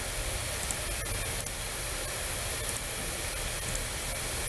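Steady microphone hiss with a low hum beneath it, and a few faint computer-mouse clicks.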